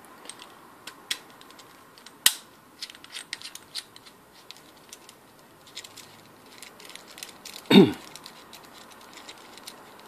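Small metal connector parts clicking and ticking as hands twist the threaded shell and coupling ring of an aviation connector. The clicks come irregularly, with one sharper click a little over two seconds in.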